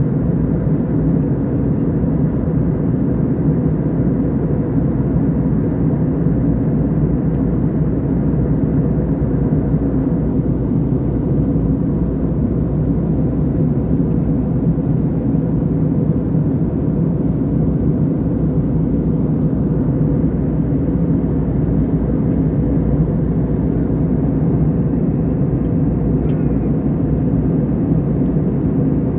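Aeroplane in flight: a steady, unchanging low drone of engines and rushing air, heard from inside the cabin.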